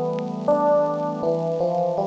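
Background music: a soft melody of sustained notes changing about every half second.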